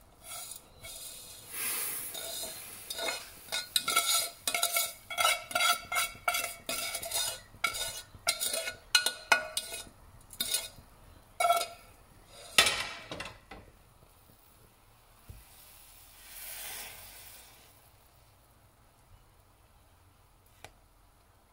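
A spatula scraping and knocking roasted vermicelli out of a non-stick pan into a pot of milk: a quick run of ringing taps on the pan for about twelve seconds. After that comes a softer swish of stirring, then it goes quiet.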